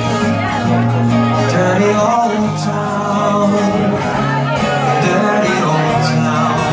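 A live duo of two guitars, an acoustic and an archtop, playing a song with a man's voice singing.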